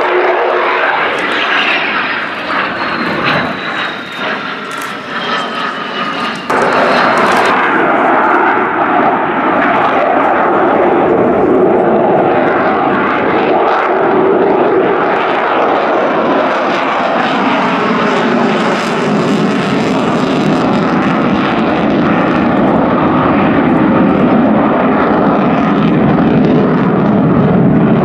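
Jet noise from a Belgian F-16A MLU Fighting Falcon's Pratt & Whitney F100 turbofan as the fighter flies a display. For the first few seconds it is quieter, with a whine falling in pitch. About six and a half seconds in it jumps suddenly louder and holds as a steady, loud roar.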